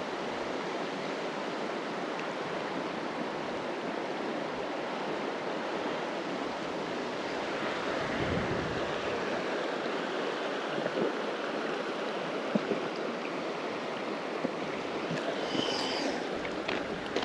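Steady rush of river water flowing, with a few faint clicks and a brief high chirp near the end.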